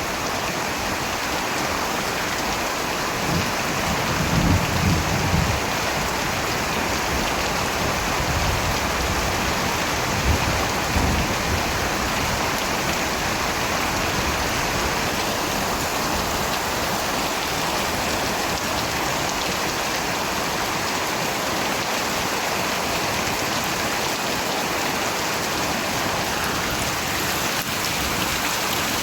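Steady rain falling in an even hiss, with low rumbles swelling briefly about four seconds in and again about ten seconds in.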